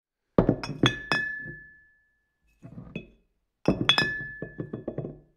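Two quick flurries of sharp clinks, like glass or hard pieces knocking together, each leaving a clear ringing note that fades over about a second, with a softer few clinks between them.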